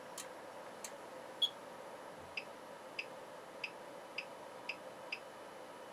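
Short electronic ticks from a bench function generator as its amplitude control is stepped up, about one every half second, after a few sharper clicks including one brief beep. A steady faint hum runs underneath.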